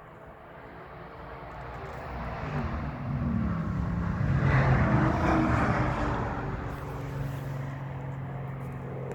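A motor vehicle passes by. Its engine noise swells to a peak about five seconds in, the pitch drops as it goes by, and a steady engine hum remains near the end.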